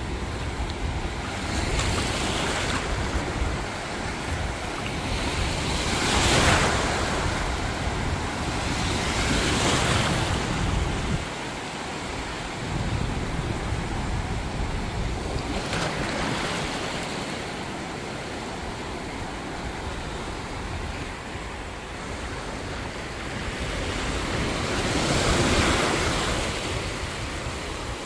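Gentle ocean surf washing in over the shallows, swelling and fading every few seconds, with the loudest wash near the end. Wind rumbles on the microphone underneath.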